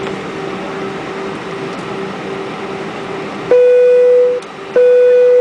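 Steady Airbus A320 cabin hum from inside the cabin, with a faint tone pulsing about three times a second. About three and a half seconds in, two long, loud electronic beeps of the same pitch, each just under a second, come about a second and a half apart and cut off sharply.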